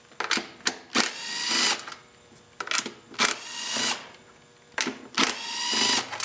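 Cordless drill/driver with a socket spinning off the three 10 mm nuts that hold the recoil starter assembly: three separate runs of a motor whine that rises in pitch, each about a second long, with short clicks between them.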